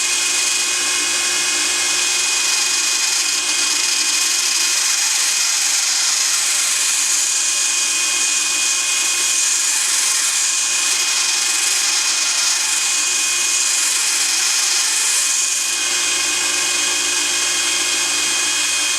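Electric drill clamped in a vise, running steadily with a grinding stone that is taking stainless steel away. A whining motor with several steady tones under a dense high grinding hiss.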